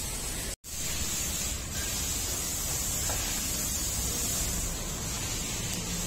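Steady hiss-like background noise, broken by an instant of silence about half a second in.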